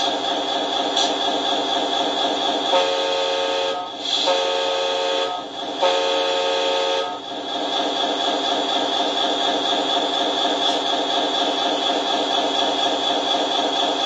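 Sound module of a radio-controlled model semi-truck playing a diesel engine idling, through the model's small speaker. About three seconds in it gives three air-horn blasts of about a second each, close together.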